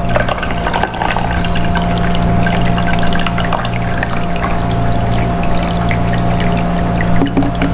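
Water being poured from a jug into the water reservoir of a drip coffee maker: a steady splashing trickle, over a steady low hum.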